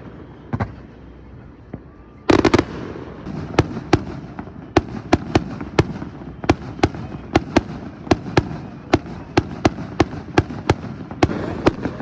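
Fireworks display: one sharp bang just after the start, then a loud cluster of bursts about two seconds in, followed by a quick string of sharp bangs, two or three a second, over a continuous crackle and rumble.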